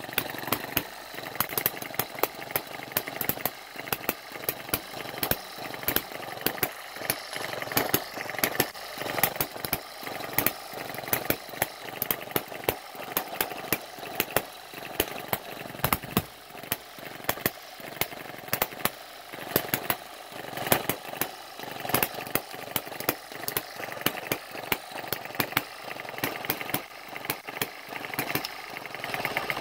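Eachine ET1 single-cylinder hit-and-miss model engine running on its own, firing sharp pops at uneven intervals between coasting strokes, over a steady mechanical clatter from its valve gear and flywheels.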